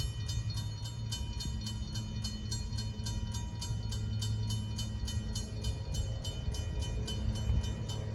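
Railroad grade-crossing bell ringing in rapid, even strikes, about five a second, over the low, steady rumble of diesel freight locomotives running at a low throttle setting.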